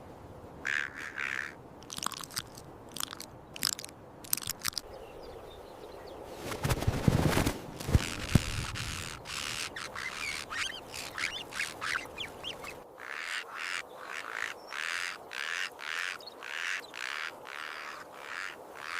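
Ravens giving short, harsh calls again and again. About seven seconds in comes a louder rustling burst with a couple of thumps, and in the last third a run of quick, evenly spaced rasping sounds, about three a second.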